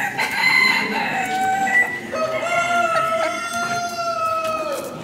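Rooster crowing: a long crow in two parts, the second a drawn-out held note of nearly three seconds.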